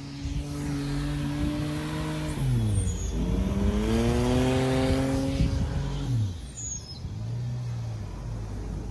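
Suzuki Jimny's engine pulling across sand. The engine note holds steady, drops sharply about two and a half seconds in and climbs back up as it accelerates again, then falls away about six seconds in, with one short rev near the end.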